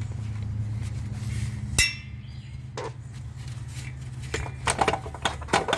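A socket and ratchet working on a starter mounting bolt: a sharp metal clink, then a run of quick ratchet clicks near the end, under a steady low hum.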